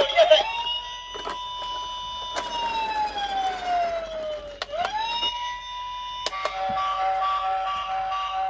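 A toy police car's electronic siren: a wail that rises, holds high, slides slowly down and rises again, with a few clicks from the toy being handled. About six seconds in, after a click, it switches to a steady, pulsing electronic tone pattern.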